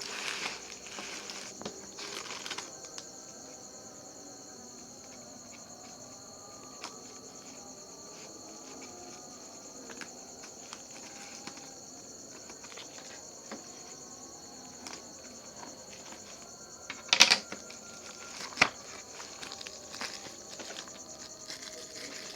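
Steady high chirring of crickets in the background, with small clicks and rustles of a parcel being handled and opened, and two sharp, loud snaps or tears about 17 and 18.5 seconds in.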